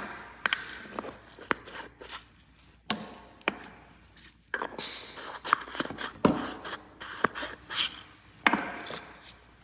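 Handling noises on a nail work table: irregular clicks and light knocks, with cloth rustling near the end.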